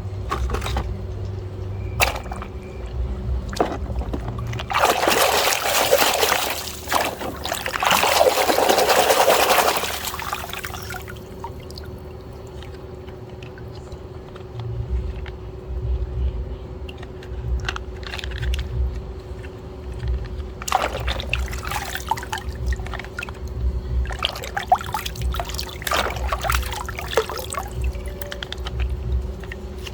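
Water pouring over toys being washed, in one burst of about five seconds, with light knocks and clicks from the toys being handled before and after. A faint steady hum runs underneath.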